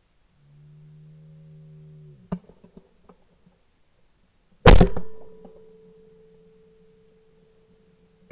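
A shooter's drawn-out call for the target, then a sharp click about two seconds in. A little over two seconds later comes a single loud shotgun shot, which dies away with a faint ringing tone.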